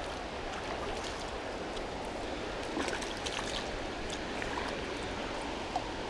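Swift river current rushing steadily around the wader, with a few small splashes.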